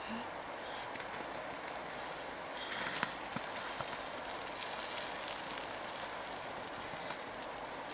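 Steady crackling and sizzling of the wood fire under a wire grill laid with cabbage leaves, with scattered small clicks and a sharper click about three seconds in.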